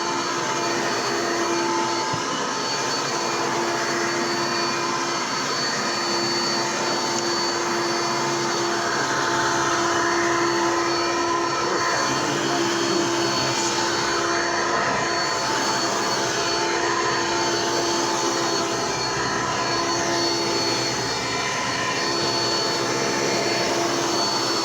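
Hoover Elite commercial upright vacuum cleaner running steadily, a motor hum with a thin high whine over the rush of air.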